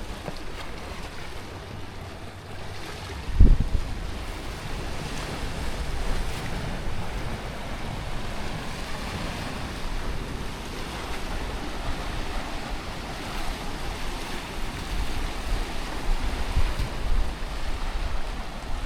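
Mediterranean sea waves washing in, swelling and easing, with wind rumbling on the microphone. A short low thump about three and a half seconds in.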